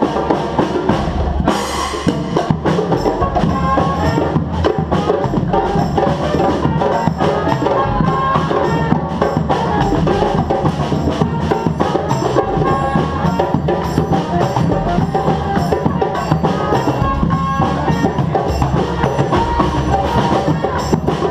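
Live band music driven by drums and percussion, playing a continuous, steady rhythm of strikes.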